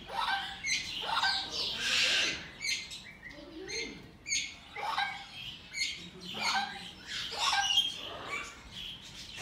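Green-cheeked conures chirping: a series of short, sharp calls repeated every second or so.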